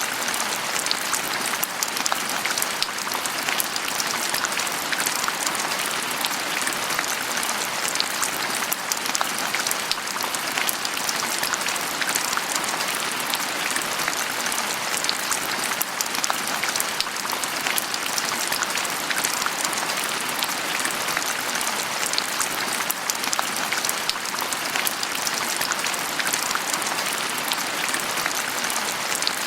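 Steady rain falling on a surface, a dense patter of drops with no pauses or changes.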